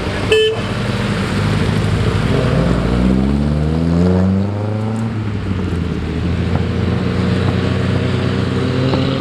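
Car engine running steadily, revving up around the middle and then settling back. There is a short, sharp high tone about half a second in.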